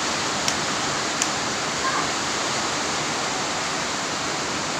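Heavy rain pouring down as a steady hiss, with a few short ticks in the first second and a half.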